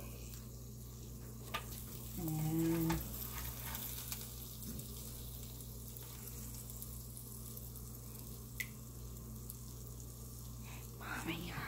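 Food frying with a faint sizzle over a steady low hum. About two seconds in comes a short, pitched, voice-like hum lasting under a second, and there are a couple of light clicks.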